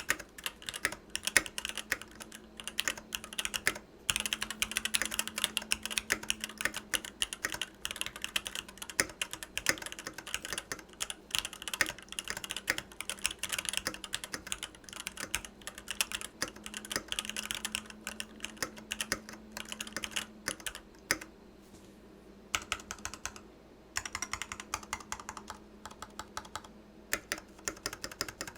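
Fast typing on a Varmilo Sea Melody mechanical keyboard with Varmilo EC V2 Daisy switches: a rapid, continuous stream of key clicks, with a couple of short pauses in the last third.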